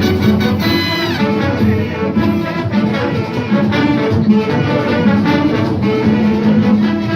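Big band playing a brass-led passage over a repeating bass line, with a quick falling run about a second in.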